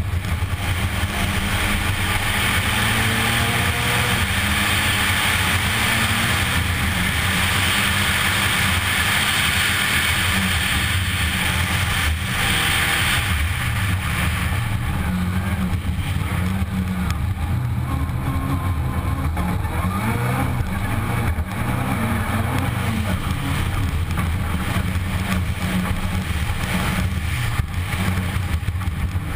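Škoda Fabia R2 rally car's engine pulling hard at speed, revs rising and falling, heard from inside the cabin. Under it runs a steady hiss and rattle of gravel under the tyres and against the car's underside, heavier in the first half.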